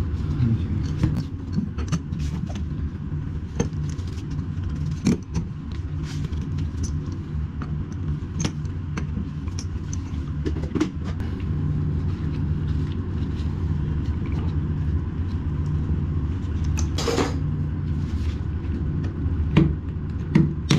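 A steady low hum runs throughout, under scattered short clicks and knocks of hand tools on toilet fittings. A louder, longer clatter comes about seventeen seconds in.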